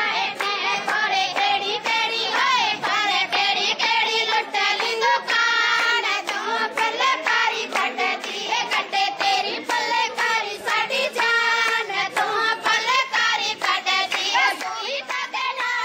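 High-pitched voice singing a Punjabi folk song, with steady rhythmic hand clapping from a group keeping time.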